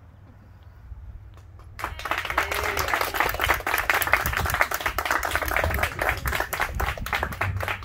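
Crowd of wedding guests applauding, breaking out suddenly about two seconds in after a short hush and continuing as dense, steady clapping.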